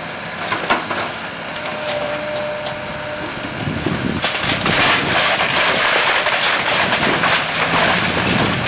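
Tracked hydraulic excavator's diesel engine running while its bucket tears into a wood-frame house, with scattered knocks at first. From about four seconds in, a loud continuous crackling and crashing of splintering timber and boards as the roof section collapses.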